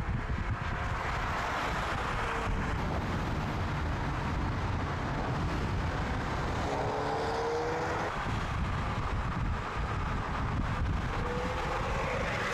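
VW Golf R prototype's turbocharged four-cylinder driving at speed under a steady rush of tyre and wind noise. Its engine note rises faintly as it accelerates, about six seconds in and again near the end.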